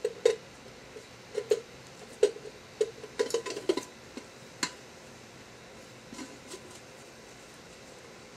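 Light metal clinks and knocks, a dozen or so over the first few seconds and some with a brief ring, as a Jetboil stove's burner and cup are handled and fitted onto a fuel canister.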